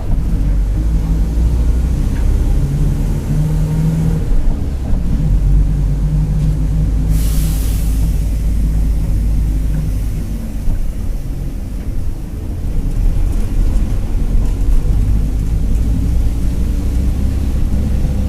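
Mercedes-Benz OF-1721 BlueTec 5 diesel bus under way, engine and drivetrain rumbling low and loud, with the differential growling. A short hiss of air from the air brakes about seven seconds in.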